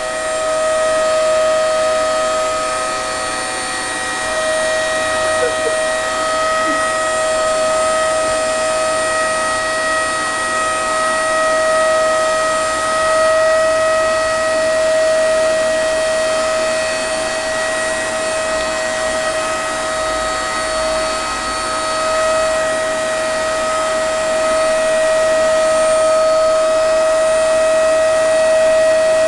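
Vacuum cleaner running steadily, its motor giving a loud, even, high-pitched whine with no change in pitch.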